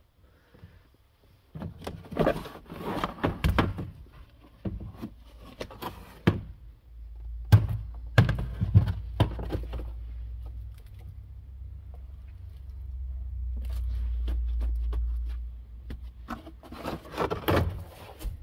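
Knocks, thuds and clattering as a car interior is dismantled, trim and loose parts knocking against the bare sheet-metal body, in two bursts with a low steady rumble between them.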